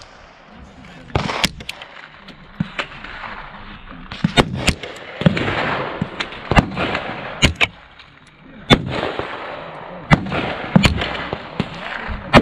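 Gunshots on an open shooting range: about a dozen shots at irregular intervals, some in quick pairs, each with a short echo trailing off.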